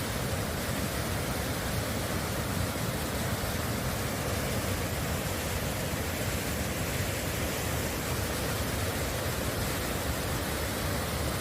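A waterfall's falling water making a steady, unbroken rush.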